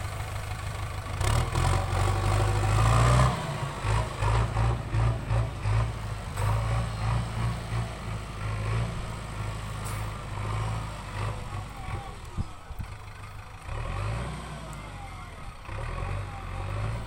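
Heavy diesel engine of a backhoe loader running under working load. It revs up about one to three seconds in, then rises and falls unevenly in level as the load changes.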